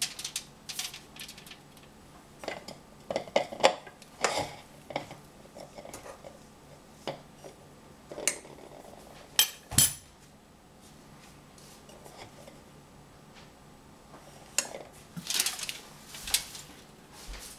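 Metal spoon clinking and scraping as cookie dough is spooned onto a foil-lined metal baking sheet, in scattered short knocks, with a sharp double knock about ten seconds in. Near the end the sheet pan is lifted and moved, its foil rustling.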